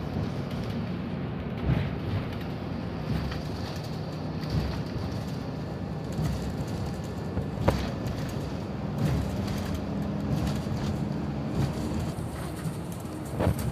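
Engine drone and road noise heard from inside a moving bus, with occasional knocks and rattles, one sharp click a little past halfway.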